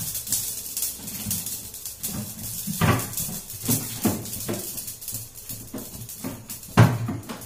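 Hot oil sizzling and crackling on the stove, with knocks and clinks of cupboard doors and steel containers being handled; the loudest knock comes near the end.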